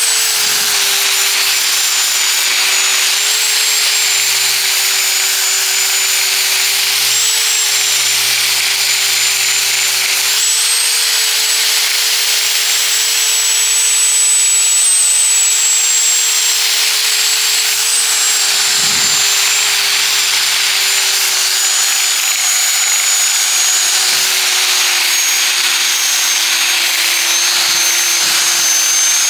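Electric tube sander, an angle grinder fitted with a belt polishing attachment, running with a 400-grit belt on a 5/8-inch stainless steel bar to sand out dents left by the press. A steady, loud motor whine over the hiss of the abrasive belt, its pitch sagging slightly now and then and drifting lower toward the end.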